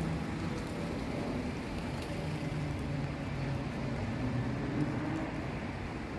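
Steady city street traffic noise: vehicle engines running with a low hum over the hiss of a wet road.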